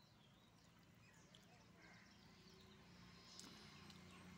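Near silence: faint outdoor ambience with a few scattered faint bird chirps.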